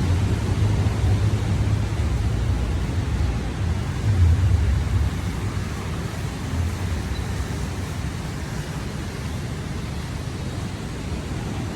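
Ocean surf washing onto a sandy beach: a steady hiss of breaking waves under a deep low rumble. A louder surge comes about four seconds in, then the wash eases off.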